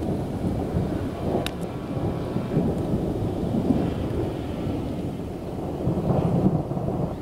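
Rolling thunder from a nearby thunderstorm: a continuous low rumble that swells twice, about halfway through and again near the end.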